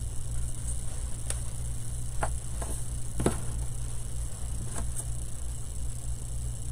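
A few light clicks and taps, about five spread over the first five seconds, as small painted wooden banner pieces are handled and threaded onto twine. A steady low hum and hiss lie underneath.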